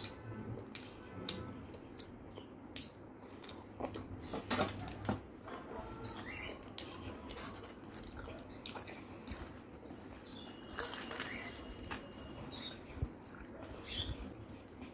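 Close-up eating sounds of a person chewing soft luchi and potato curry eaten by hand: wet chewing, lip smacks and scattered sharp mouth clicks, with small squishes as the fingers work the curry.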